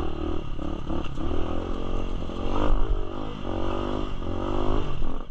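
A Motomel enduro motorcycle's engine running while being ridden, its pitch rising and falling several times as the throttle opens and closes.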